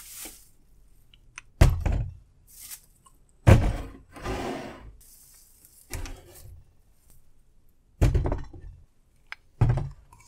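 Full plastic water bottles being set down one by one on a wooden desk: five dull thuds about two seconds apart, some followed by a short rustle of plastic.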